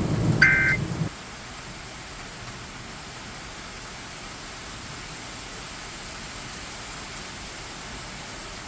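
Steady rain hiss. About half a second in, a short two-tone electronic data burst from the emergency alert broadcast sounds over a low rumble that cuts off suddenly about a second in, leaving only the rain.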